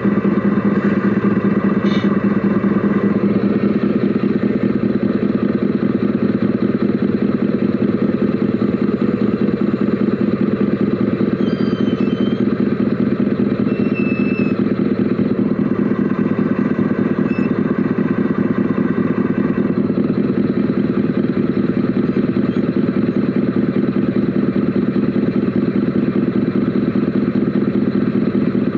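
Steady engine-like drone with a fast, even pulse, heard from inside the cab of a radio-controlled Mercedes Actros SLT model truck.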